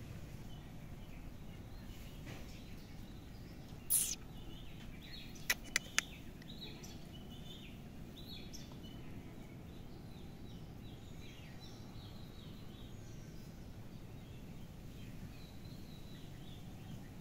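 Small birds chirping in short repeated calls over a steady low background rumble. A sharp click about four seconds in, then three quick clicks about a second and a half later.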